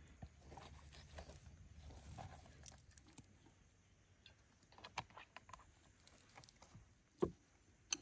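Faint food-preparation handling sounds: a kitchen knife working through raw chicken on a wooden board, with small clicks and taps. Sparser taps follow, and one sharp knock about seven seconds in is the loudest sound.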